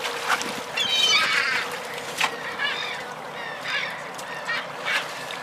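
A series of short, harsh, honking animal calls, one after another, over a steady watery hiss, with a couple of sharp knocks.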